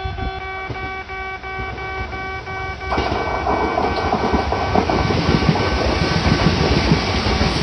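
Japanese railway level-crossing warning bell ringing steadily, then about three seconds in a Kintetsu Nagoya Line train reaches the crossing and passes with a loud rumble and rattle of wheels on rail, the bell still ringing beneath it.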